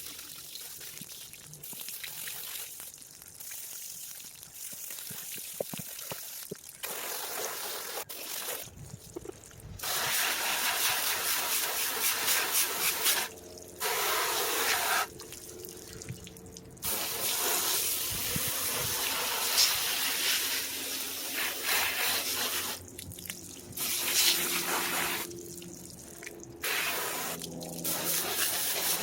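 Water running and splashing in spells, starting and stopping abruptly several times.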